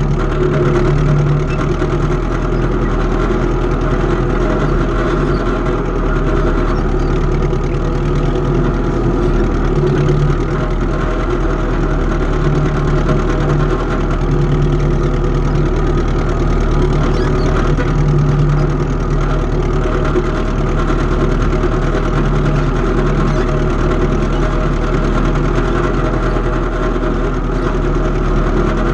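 Antique tractor engine running at a steady speed, its low note swelling and easing slightly every few seconds.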